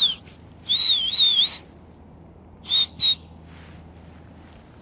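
A high, breathy whistle, sounded twice: first a long one that warbles up and down about a second in, then a short one near three seconds.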